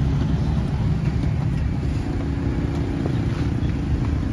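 Steady low rumble of street background noise, with road traffic.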